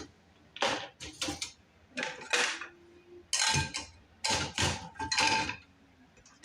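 Dishes and cutlery clattering and clinking as a dishwasher is unloaded: a string of short knocks and clinks, some ringing briefly, with short pauses between them.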